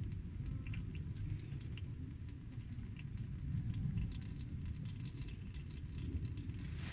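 Wood campfire crackling: many small, irregular pops and snaps over a steady low rumble.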